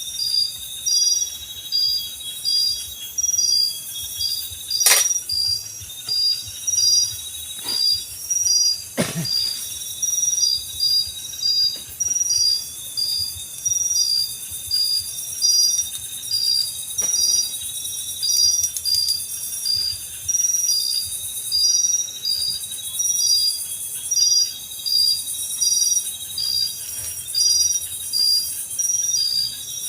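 Night insects, crickets or katydids, calling in a steady high chirp that repeats about once a second over a continuous hiss of other insects. A sharp click comes about five seconds in and a duller knock around nine seconds.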